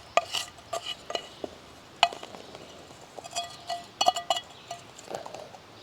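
Metal cookware being handled while cooking chicken: a utensil clinks and taps against a pan, a dozen or so light irregular clicks, several with a short metallic ring.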